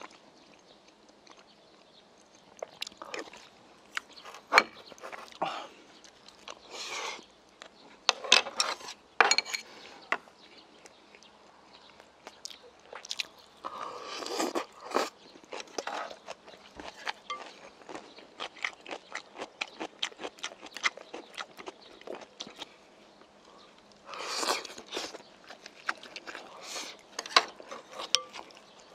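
Close-up mouth sounds of a person eating: chewing and biting with many small wet clicks and smacks, crunching on kimchi, and a few longer stretches of about a second each, likely sips of stew from a spoon.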